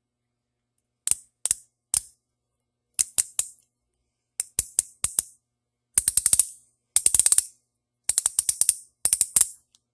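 Robinair 42071 ratcheting tube cutter clicking as its ratchet is worked: a few single sharp clicks at first, then quicker runs of several clicks each.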